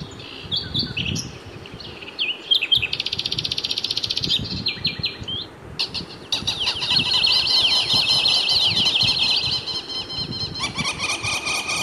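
Birds chirping and trilling, several calls overlapping. Sparse at first, with a fast trill a few seconds in, then a dense, continuous chorus from about six seconds in.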